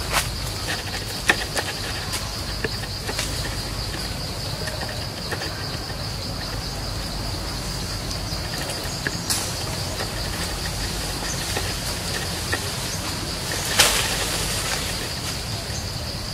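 Forest ambience dominated by a steady, high-pitched insect drone, over a low rumble. Scattered small clicks and snaps, with one louder rustle lasting about a second near the end.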